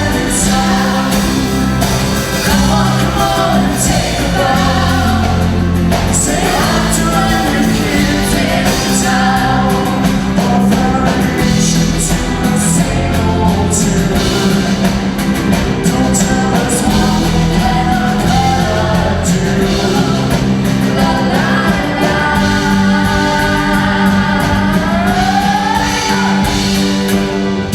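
A song: voices singing over steady instrumental backing, with a long sung note gliding upward near the end.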